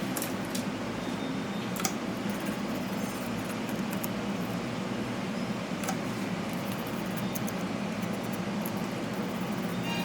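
Steady fan-like hum throughout, with a few light clicks and taps scattered over it.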